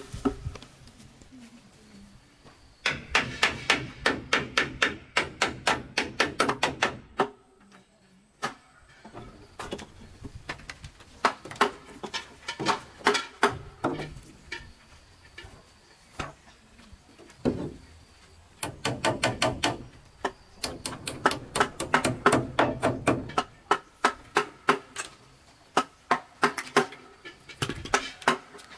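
Hammer striking nails into wood on a house frame: four runs of quick, even blows, about three a second, with short pauses between them.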